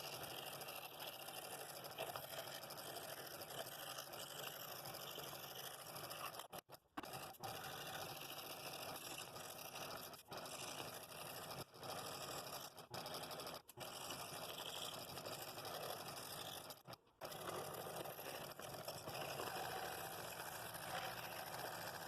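Scroll saw running and cutting thin wood, a steady buzzing rasp of the reciprocating blade, cut off abruptly for a moment several times.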